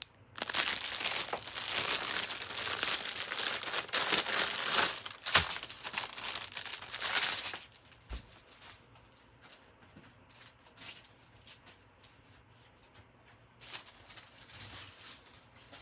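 Clear plastic bags of diamond-painting drills crinkling as they are handled close up, for about seven seconds. Then only faint scattered rustles, with a brief burst of crinkling near the end.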